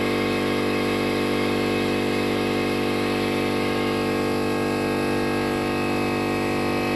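A motor running steadily: a constant machine hum made of many even tones, unchanging in pitch or level.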